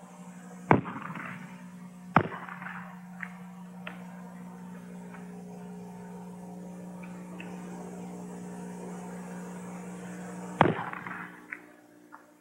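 Three shots from single-shot black-powder breechloading rifles (Snider and Martini-Henry): one a little under a second in, one about a second and a half later, and one near the end, each with a short echo. Small metallic clicks of the breech actions being worked and cartridges loaded fall between them, over a steady low hum.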